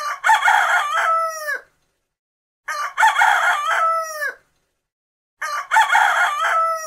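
Rooster crowing three times, about two and a half seconds apart, with dead silence between. Each crow is the same: a few choppy opening notes running into a long held note that falls away at the end.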